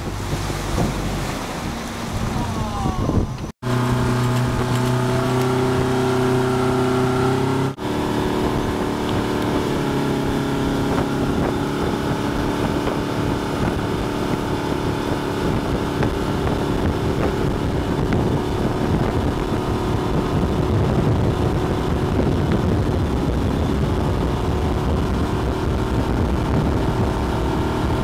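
Motorboat engine running steadily at speed while towing, over a rushing wash of wake water and wind buffeting the microphone. The sound cuts out briefly twice in the first eight seconds.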